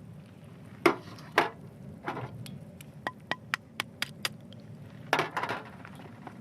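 A series of hard knocks and sharp clicks, like objects or utensils being handled and set down: two strong knocks about a second in, a run of about eight quick clicks in the middle, and a cluster of knocks near the end, over a steady low rumble.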